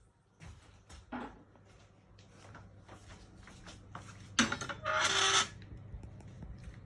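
Scattered clicks and knocks over a steady low hum, with a sharp knock about four seconds in followed by a brief rush of noise lasting about half a second.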